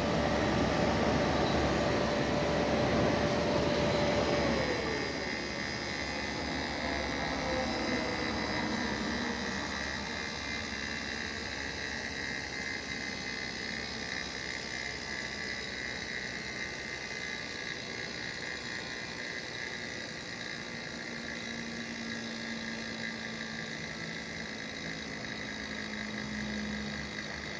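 Mitsubishi MJ-EV250HM 25-litre inverter dehumidifier running, its compressor giving a steady whine that slides down in pitch about four and a half seconds in as the unit gets quieter. What remains is a steady whir with a thin high whine, and a low hum comes in near the end. The owner takes this compressor noise for abnormal in a new unit.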